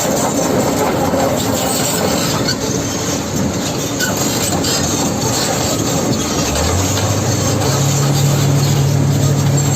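Excavator working, its diesel engine and steel tracks making a loud, steady mechanical noise. About two-thirds of the way through, a low engine hum comes in and rises in steps before holding steady, as the engine is revved up.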